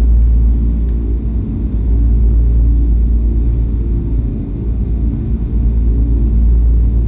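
A loud, deep, steady rumble, with short low tones that shift from pitch to pitch over it.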